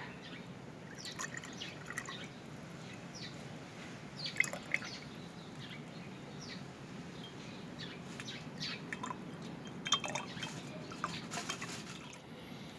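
Homemade onion-and-beetroot syrup being strained, dripping through the strainer in scattered drops and small ticks, with a couple of louder drips about four and ten seconds in.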